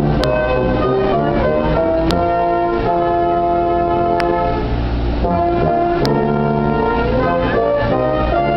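Slow instrumental music with long held chords, played for the presentation of the colors while soldiers salute.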